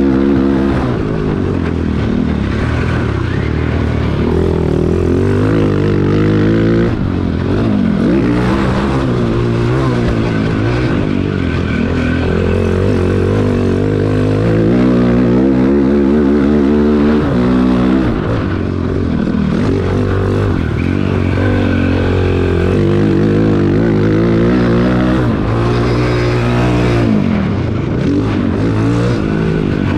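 Cannondale quad's single-cylinder four-stroke engine being ridden hard on dirt. The engine note repeatedly climbs and drops as it revs up through the gears and comes off the throttle.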